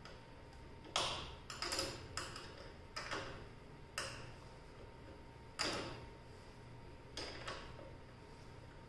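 Sharp metallic clicks of a wrench on a motorcycle frame bolt as it is worked loose, about nine single clinks at uneven spacing, roughly one a second.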